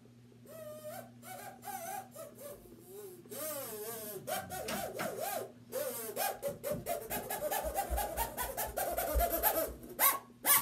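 A harmonica played as a wavering tune, its notes sliding up and down. Low thumps come in past the middle, and a couple of loud short blasts come right at the end.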